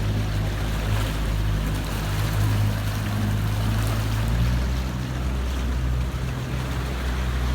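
Boat motor running with a steady low hum, with water washing past the hull.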